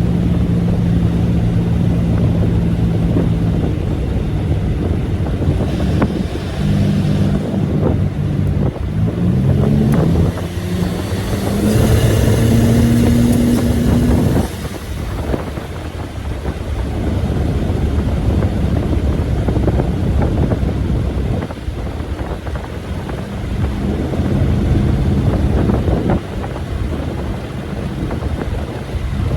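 1986 Buick Grand National's turbocharged V6 pulling the car along. The engine note climbs in pitch for a few seconds about eight seconds in as the car accelerates, then drops back to a steadier drone at cruise. There is wind noise throughout.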